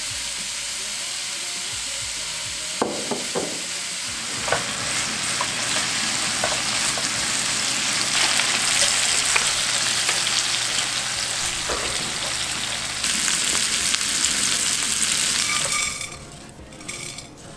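Thin-sliced beef brisket sizzling loudly as it stir-fries in a hot frying pan, with a few knocks and scrapes of the utensil stirring it. The sizzle cuts off about a second before the end, leaving softer clicks of soaked rice tipped into a pot.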